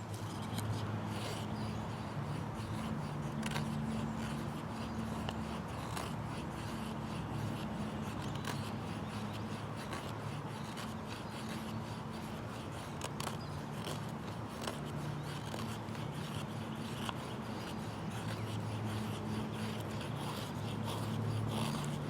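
The small wood saw blade of a Swiss Army Farmer pocket knife rasping through a stick in repeated back-and-forth strokes. A low hum comes and goes underneath.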